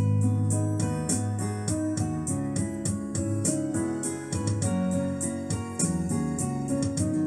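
Instrumental backing track: keyboard chords and melody over a steady beat, with no voice.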